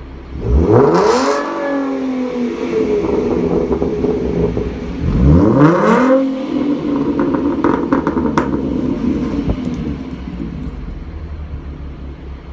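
Ford Mustang 3.7-litre V6 with a Borla S-Type cat-back exhaust, revved twice from idle: two quick blips a few seconds apart, each rising and falling back. Crackles and pops follow on the overrun, then it settles back to a steady idle.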